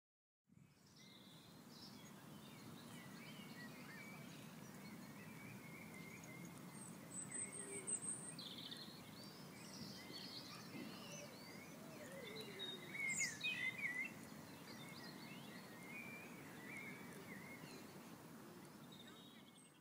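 Faint outdoor ambience: birds chirping and calling over a low steady rumble, with a few louder calls about eight and thirteen seconds in.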